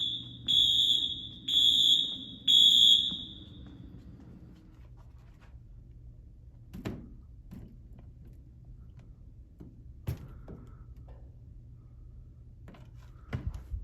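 Wheelock MT fire alarm horn sounding a high-pitched electronic tone in even pulses about once a second, stopping about three seconds in. A few light knocks follow in the quieter remainder.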